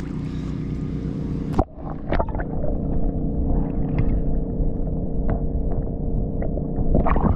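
A splash about one and a half seconds in as the microphone goes under the water. Then muffled underwater gurgling and rumble over a steady low hum, with small scattered clicks, until it splashes back out near the end.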